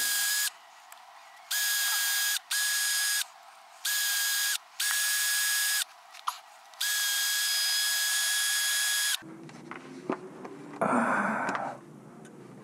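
Cordless rotary tool with a wire wheel brush, switched on and off in about six short runs of a steady high whine, scrubbing rust off small bolts. The last run is the longest. A brief rustle of handling follows near the end.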